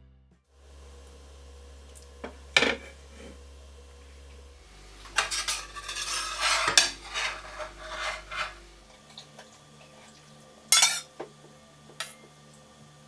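Kitchen utensils clinking and scraping against dishes: a few sharp clinks, then several seconds of busy stirring clatter in the middle, then a couple more clinks.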